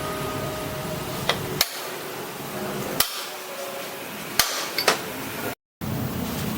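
A tool knocking on metal: five sharp knocks at uneven spacing over a steady hiss. The sound drops out completely for a moment near the end.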